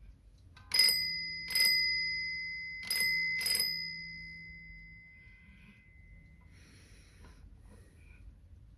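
Bell of a Seikosha carriage alarm clock struck four times in two quick pairs, each strike ringing out and slowly dying away.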